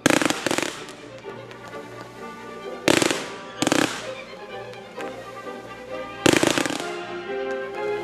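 Fireworks going off over music, with loud sharp bangs as the music comes in, then more near three seconds in and a pair just after six seconds.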